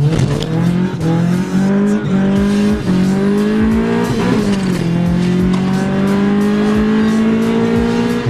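Car engine at full throttle, accelerating hard in a street race. Its pitch climbs steadily, drops at an upshift about four seconds in, then climbs again.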